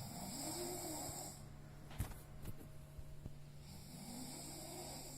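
A sleeping person snoring: two long snores about three and a half seconds apart, each rising and then falling in pitch. A sharp click comes between them, about two seconds in.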